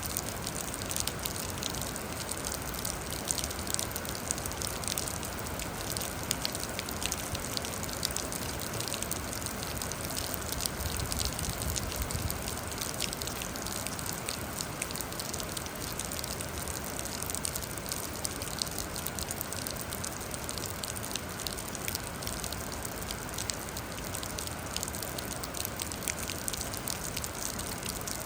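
Steady rain falling, a continuous hiss with many individual drops pattering throughout.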